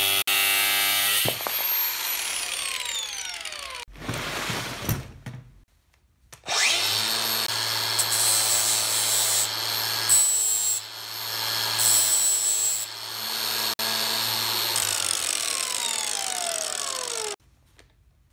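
Angle grinder with a cut-off disc cutting through threaded steel rod, then switched off and winding down in falling pitch. After a short pause a grinder starts up with a rising whine, runs steadily, grinds the cut rod twice with a brief higher-pitched scrape, and winds down again before cutting off suddenly near the end.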